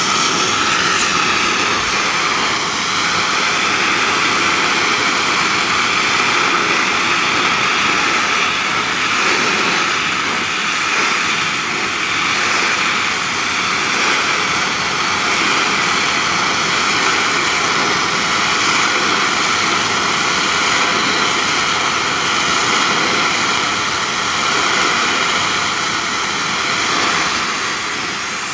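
Gas torch flame burning with a steady rushing noise as it heats a seized steel tie rod in a vise, to expand it enough to break it free.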